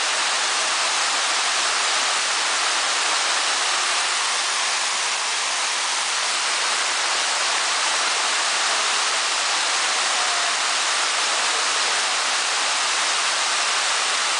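Indoor mall water fountain splashing: a steady, even rush of falling water.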